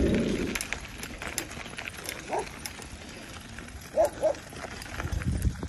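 Dogs barking: one short bark about two seconds in, then two in quick succession a couple of seconds later, over light ticking and rattling from bicycles on the move.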